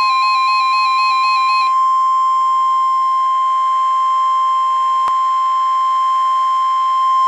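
NOAA Weather Radio 1050 Hz warning alarm tone: a single loud, steady tone that cuts off abruptly, sounding ahead of a tornado warning broadcast. Fainter stepping tones lie over it for the first second and a half or so, and there is a single click about five seconds in.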